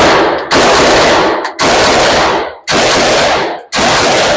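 Zastava AK-47 rifle firing 7.62×39 mm steel-case rounds in slow semi-automatic fire, four shots about a second apart, each loud blast ringing on for most of a second.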